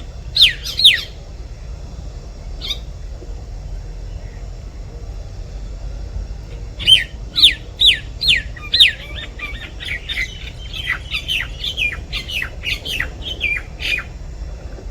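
Myna calling: two loud, sharply falling calls near the start, then, after a pause, a run of five loud falling calls about half a second apart that breaks into a quicker string of shorter, quieter notes.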